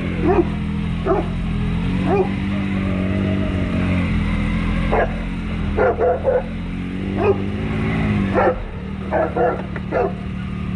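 Dog barking repeatedly, about a dozen short barks, some in quick runs of two or three, over the steady idle of a Can-Am Maverick X3 side-by-side's engine.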